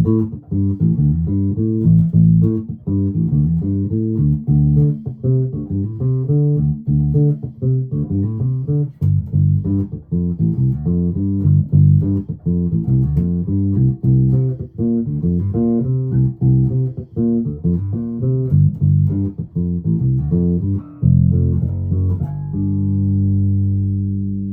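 Alembic Epic four-string electric bass played through an Orange Crush 100 amp, volume full on, pickup blend centered and bass and treble at their center detents. It plays a busy run of notes, then lets a note ring on near the end.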